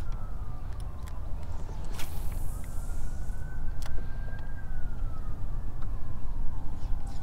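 Faint wailing siren, its pitch sliding slowly down, up and down again over several seconds, over a steady low rumble with a few sharp clicks.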